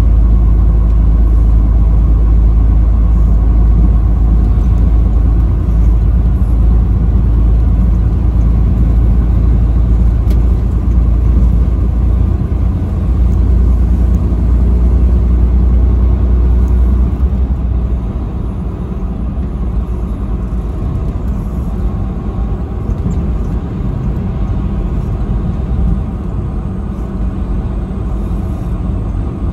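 Steady low rumble of a vehicle driving on a highway, with engine and road noise and no horn. It drops a little in level about eighteen seconds in.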